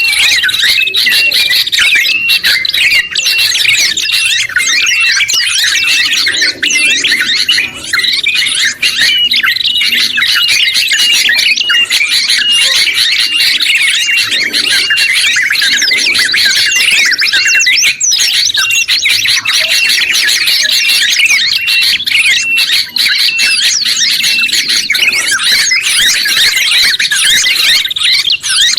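Dense, continuous mix of songbird calls and songs, many short chirps, trills and whistles overlapping at once. It is a combined recording of yellow-vented bulbul (trucuk), sooty-headed bulbul (kutilang), oriental white-eye (pleci) and prenjak kepala merah songs of the kind used to tutor caged songbirds.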